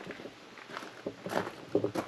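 Footsteps on a gravel driveway: a string of uneven crunching steps, the loudest about two-thirds of the way through.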